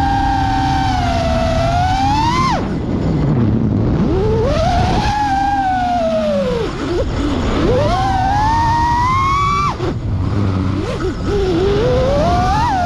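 FPV freestyle quadcopter's brushless motors and propellers whining, the pitch sliding up and down with the throttle. The throttle is cut sharply about two and a half seconds in and again about three-quarters of the way through, each time followed by the motors spooling back up.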